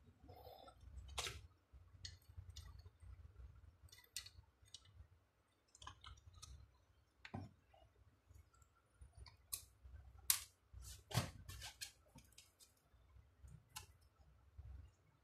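Alternator and hand tools being handled on a workbench: scattered sharp clicks and knocks, loudest about ten and eleven seconds in, over a faint low hum.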